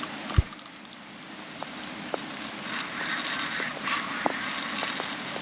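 Rain falling steadily, with scattered drops ticking close by, and one dull low thump about half a second in.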